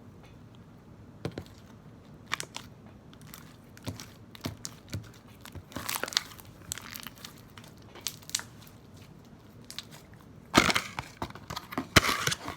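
Homemade matte black slime squeezed and worked by hand, making scattered wet clicks, pops and crackles. They are sparse at first, come thicker in the middle, and bunch into a dense burst near the end.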